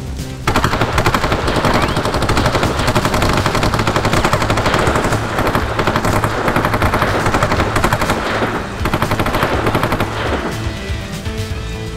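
Rapid, continuous automatic-weapon fire over background music. It starts suddenly about half a second in, breaks briefly about two-thirds of the way through, and dies away near the end.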